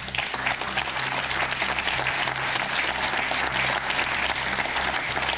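Audience applause that starts suddenly and continues steadily.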